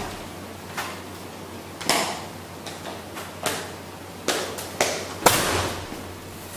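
A series of sharp taps and knocks, roughly one a second and uneven in strength, with a heavier thud about five seconds in.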